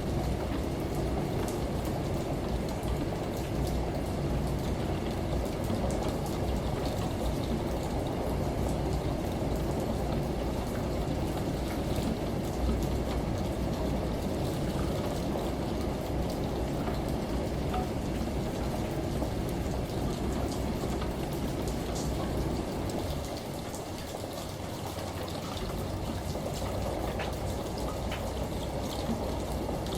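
Steady rain falling, with scattered fine drop ticks over an even hiss and a low steady rumble underneath. The rumble drops away for a few seconds about two-thirds of the way through, then returns.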